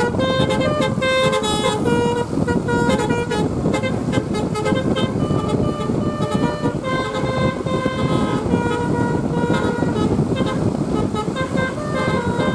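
Basuri 'telolet' multi-tone bus air horn playing a tune of short notes that keep stepping from one pitch to another, over a steady rumble of traffic.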